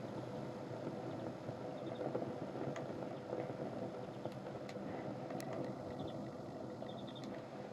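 Flames burning on a pair of sneakers: a steady rushing of fire with a few sharp crackles and pops.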